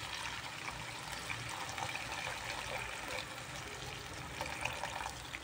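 Water poured in a stream into a hot frying pan of fried fish paste, a steady trickling splash into the cooking mince.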